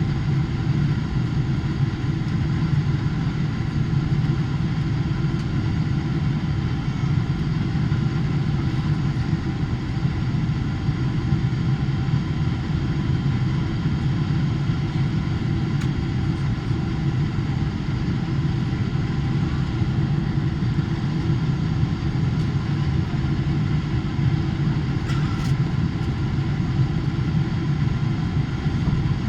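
Steady cabin noise inside a Boeing 777-300ER on approach: the low rumble of airflow and its GE90 engines, with a faint steady whine above it.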